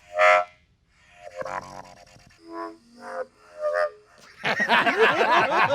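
Large war horn blown by mouth: a string of short toots at different pitches, some wavering, then a longer, louder warbling blast near the end.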